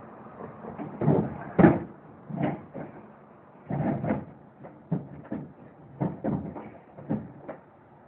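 A string of irregular knocks and thumps, about ten over several seconds, some dull and heavy, dying away near the end.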